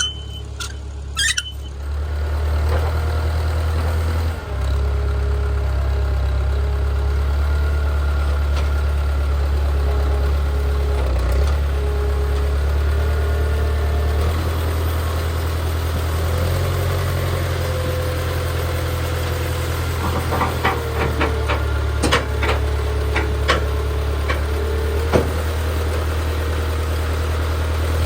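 Case 580CK backhoe's Case 188 four-cylinder diesel engine running steadily at low speed, with a few sharp clanks about twenty seconds in.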